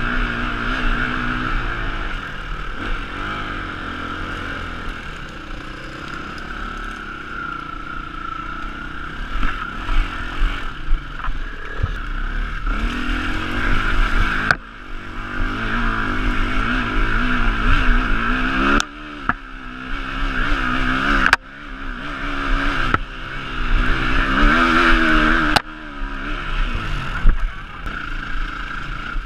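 Trail motorcycle engine heard from on the bike while riding a rough forest track, its note rising and falling with the throttle, with knocks and rattles from the bumpy ground. The engine drops away sharply several times in the second half as the throttle is shut.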